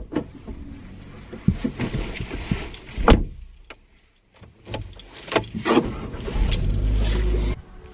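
A person getting into a car: clicks and rustling as the driver's door opens and she settles into the seat, and a heavy thump about three seconds in as the door shuts. Near the end there are more clicks and rustling, then a steady low rumble for about a second that cuts off suddenly.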